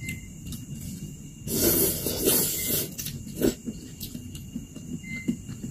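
Close-miked mukbang eating sounds: a loud airy slurp of instant noodles and meatball broth lasting about a second, starting about a second and a half in. About 3.5 s in comes a sharp click of plastic chopsticks against the bowl.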